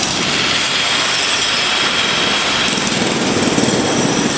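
Acetylene torch burning acetylene alone, its big open flame giving a steady, loud rushing noise that flickers rapidly.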